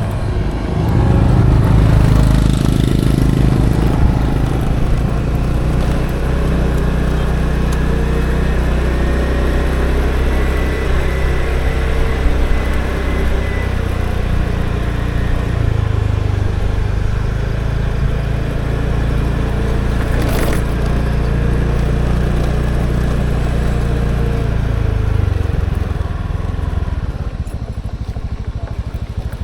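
A small engine running steadily, its low hum shifting in pitch a little about halfway through, with one brief sharp click about two-thirds of the way in.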